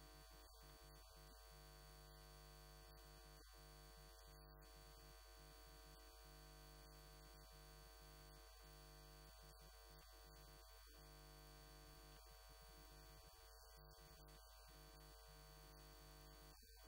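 Near silence: a faint, steady electrical hum with many overtones, like a live line with no signal on it.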